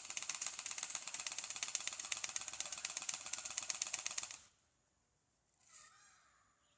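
SCAR-L electric airsoft gun (AEG) firing a full-auto burst of BBs, a fast even rattle of shots lasting about four seconds that stops abruptly.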